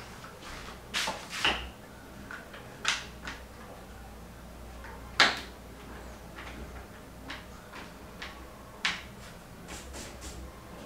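Scattered light knocks and clacks, about eight in all, the sharpest about five seconds in, over a faint low hum.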